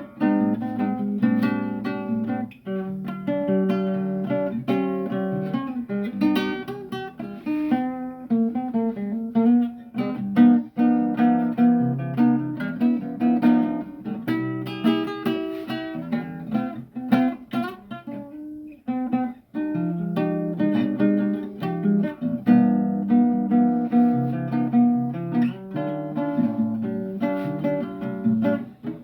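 Acoustic guitar played solo in an improvisation, with picked notes and strummed chords, pausing briefly about two-thirds of the way through.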